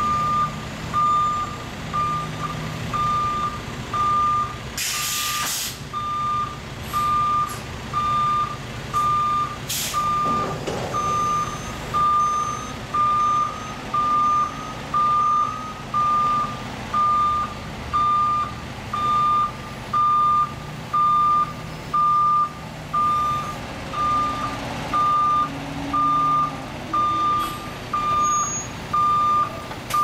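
A dump truck's backup alarm beeping steadily about once a second over its engine running as the truck reverses. Two short hisses of air break in about five and ten seconds in.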